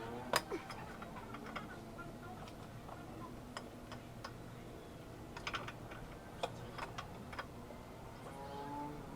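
Scattered metallic clicks and taps of a hook spanner wrench being fitted to and worked on a motorcycle's steering-stem lock nut, the sharpest about half a second in and a small cluster a little past the middle.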